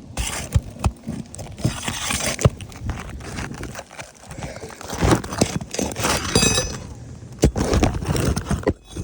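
Irregular knocks, clicks and scraping from hands and tools working on asphalt shingles of a roof, with a short squeal about six seconds in.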